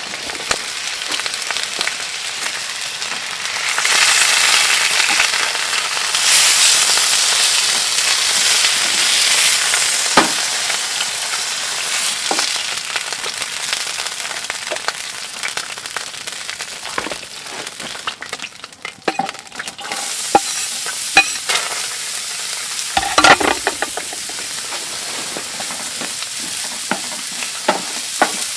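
Food sizzling and frying in a pan on a wood stove, a steady hiss that swells for a few seconds near the start, with scattered sharp clicks and knocks throughout.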